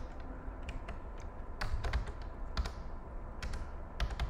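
Typing on a computer keyboard: short, irregular runs of keystrokes as a password is typed in.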